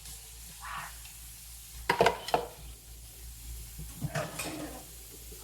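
Dishes and utensils knocking together while being washed by hand: two sharp clinks about two seconds in and a few more clinks and scrapes just after four seconds.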